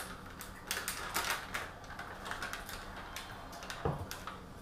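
Scattered light clicks and taps, then a single soft thud about four seconds in as a foam cup is set down on a wooden table.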